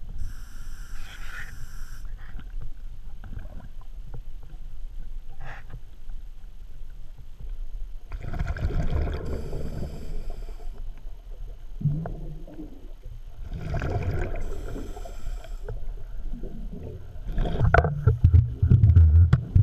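Scuba diver breathing through a regulator underwater: exhaled bubbles rushing in bursts several seconds apart, the last and loudest near the end, over a steady low rumble of water.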